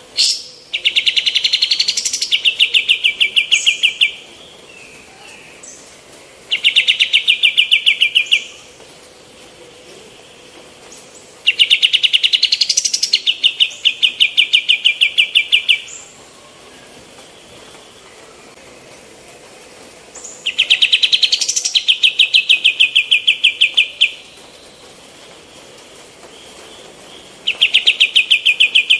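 Kapas tembak songbird, a female, singing five bursts of a rapid, evenly pulsed rattling trill, each lasting two to four seconds and opening with a quick rising note, with short pauses between bursts.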